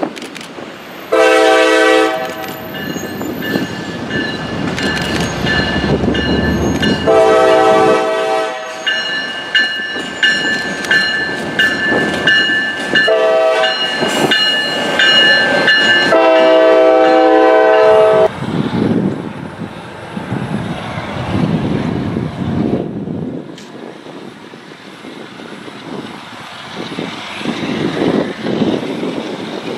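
Diesel locomotive's multi-chime air horn sounding long, long, short, long, the standard grade-crossing signal, over the rumble of the locomotive passing close by. After the last blast only the engine and wheel rumble remains.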